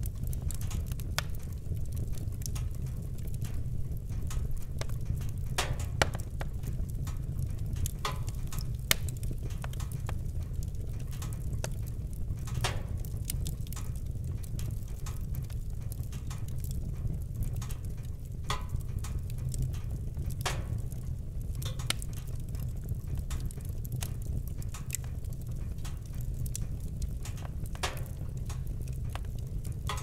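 Wood fire crackling: burning logs give off irregular sharp pops and snaps over a steady low rumble.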